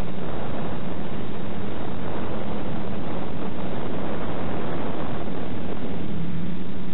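Quadcopter's DJI E300 2212 motors and 9x4 propellers humming steadily in flight under a heavy rush of wind noise, the hum strengthening near the end.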